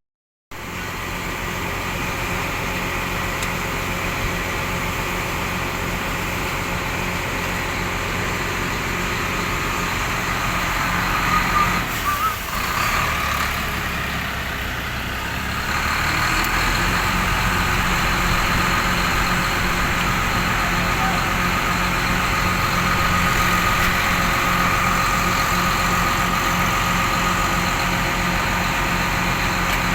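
Heavy truck's diesel engine running with a steady low drone, growing louder a little past halfway through.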